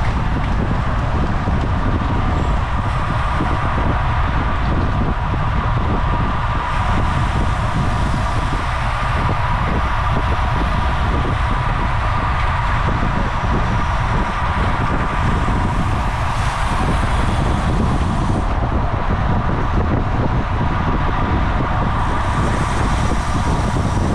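Steady rushing wind noise on the camera microphone of a road bike ridden at race speed, with a constant whirring hum beneath it.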